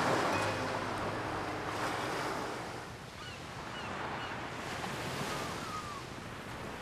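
Sea surf washing onto a sandy beach, swelling and falling back every couple of seconds, with a few faint short chirps around the middle.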